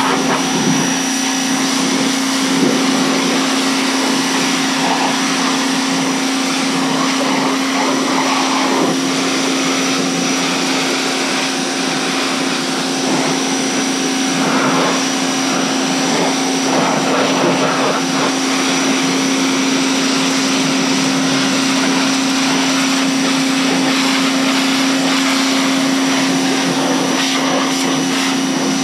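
A 2200 PSI electric pressure washer running steadily, a constant motor hum with a high whine over the hiss of its water jet spraying.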